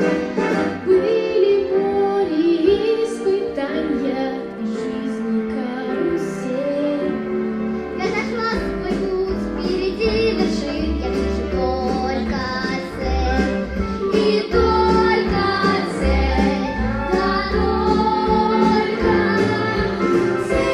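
A children's musical number: children and a woman singing a song over instrumental accompaniment, with a steady bass beat coming in about eight seconds in.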